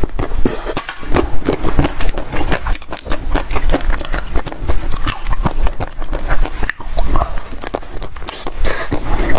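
Close-miked crunching of dyed ice balls frozen with basil seeds as they are bitten and chewed: a dense, irregular run of sharp cracks and crackles.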